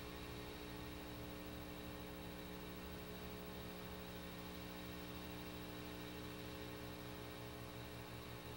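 Steady electrical hum with a faint hiss underneath, unchanging throughout.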